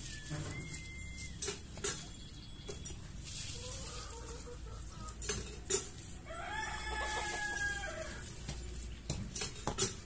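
A rooster crows once, a long call held for well over a second starting about six seconds in. Around it come scattered sharp knocks of a hoe chopping into dry soil.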